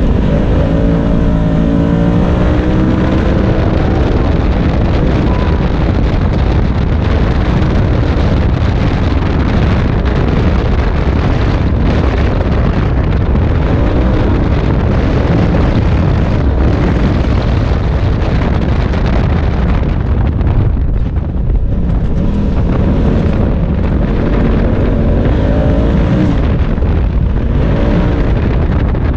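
Polaris RZR side-by-side under way on a dirt track. Its engine runs loud throughout, the engine note rising and falling as the throttle is worked, with a brief let-off about two-thirds of the way through.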